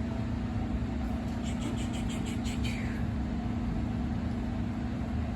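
Steady low mechanical hum with a rumble beneath it, with a short run of faint light clicks about a second and a half in.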